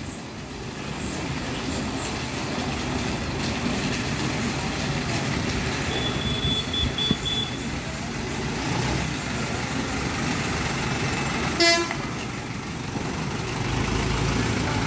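Diesel engine of a loaded lorry running at low speed as it crawls through mud and potholes. There is one short horn toot about three-quarters of the way through.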